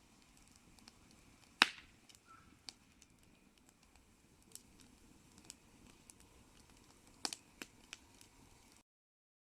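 Campfire crackling: faint steady hiss with irregular sharp pops, the loudest about one and a half seconds in and a quick pair a little after seven seconds. The sound cuts off abruptly near the end.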